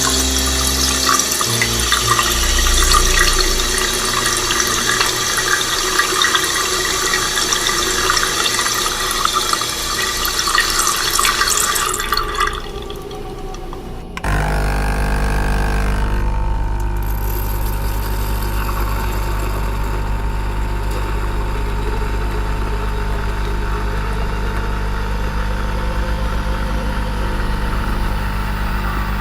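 Water running from a kitchen tap for about twelve seconds, dying away. Then, about fourteen seconds in, a kitchen appliance's motor starts with a steady low hum that keeps on.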